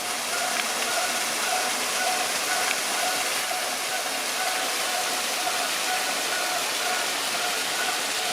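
Steady rushing noise of running water, with a faint wavering tone that comes and goes on top of it.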